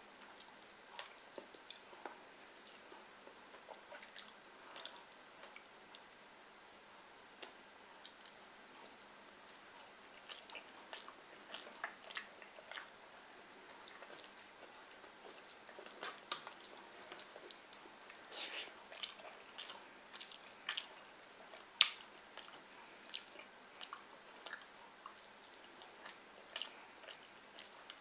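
Close-up eating sounds: wet chewing and lip smacks, with fingers squishing fried fish and rice mixed with curry, in scattered short clicks. One sharper smack comes a little past the three-quarter mark.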